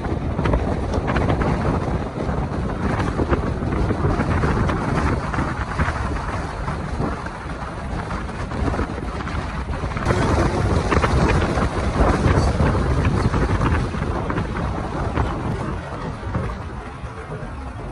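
Vehicle driving on a gravel road: steady tyre rumble with wind buffeting the microphone.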